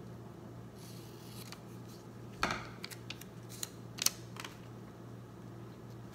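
Scissors making a few short, separate snips through a sticker sheet, with light paper rustling.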